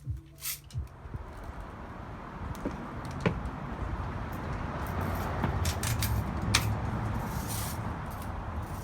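Red Ryder BB gun's new metal cocking lever being tried out: a few knocks in the first second, then sharp clicks about three seconds in and again near seven seconds, over a steady rushing noise that swells through the middle.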